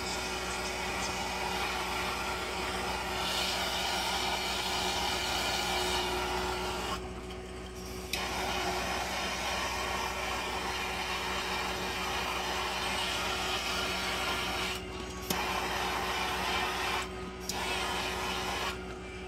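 Handheld gas torch burning with a steady rushing hiss, shrinking heat-shrink tubing over crimped well-pump wire splices. The flame noise cuts out briefly about seven seconds in and a few more times near the end.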